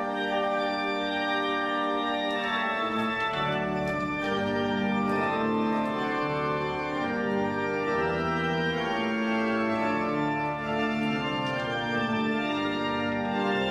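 The 1874 L. van Dam en Zonen pipe organ playing a slow piece in held chords, with deeper bass notes coming in about three seconds in.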